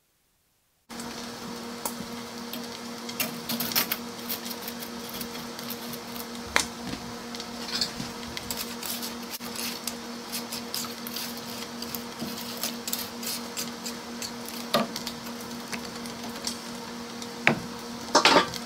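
Wooden spatula and dry spaghetti clicking and knocking against a metal cooking pot as the pasta is pushed down into the water, over a steady hum and faint hiss from the stovetop.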